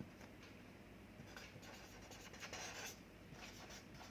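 Faint scratching of someone writing by hand, in short strokes, the longest about two and a half seconds in.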